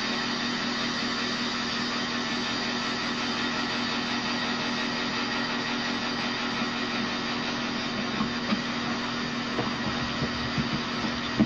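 Steady hum and rushing noise of the blower fan drawing air through the silane abatement test chamber, with a few short knocks in the last few seconds.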